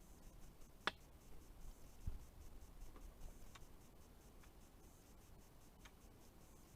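Near silence broken by a few faint clicks: a sharp click about a second in, a soft low thump just after two seconds, and fainter ticks later.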